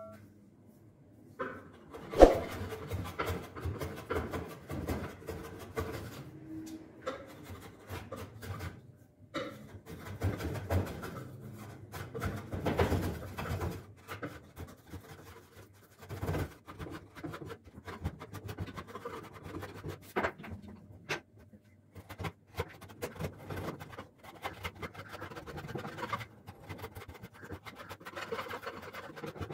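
Hand file rasping over a wooden cricket bat in repeated rough strokes, broken by short pauses. A sharp knock about two seconds in.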